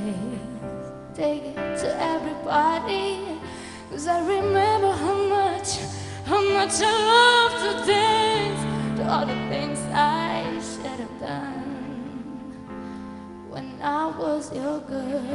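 A woman singing a pop ballad live into a microphone, backed by a band with keyboard and electric guitar, with several held notes that waver in vibrato.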